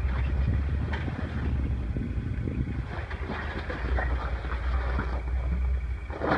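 Off-road Jeep engine running at low speed as the Jeep crawls up a rock ledge, a steady low rumble with a few short scrapes and crunches of tyres on rock.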